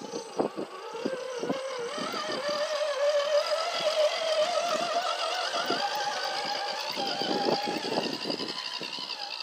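Electric motor and geared transmission of an RC scale rock crawler whining as it crawls over rock, the pitch creeping up and stepping higher a little past the middle as the throttle changes. Short knocks and clicks from the tyres and chassis hitting the rock come through the whine.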